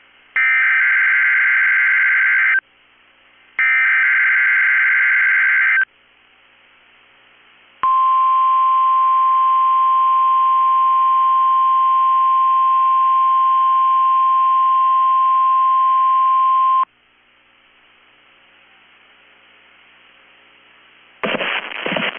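NOAA Weather Radio test broadcast: the last two bursts of the SAME digital alert header, harsh warbling data tones about two seconds each with a second's gap between. About two seconds later comes the steady 1050 Hz warning alarm tone, held for about nine seconds. Then there is faint radio hiss, and an announcer's voice starts near the end.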